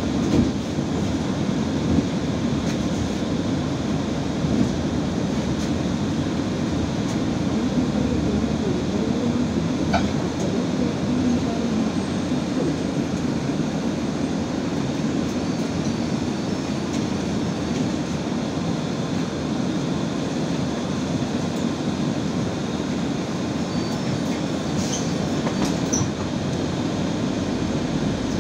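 Steady low rumble of an Irisbus Citelis 12 m city bus heard from inside the passenger cabin: the engine running and the body carrying its noise, with a few light clicks and rattles.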